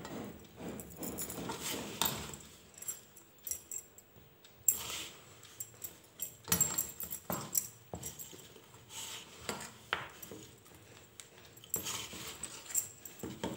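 Hands kneading and squeezing crumbly semolina dough in a steel bowl: irregular soft knocks and scrapes against the metal bowl, with light metallic clinks.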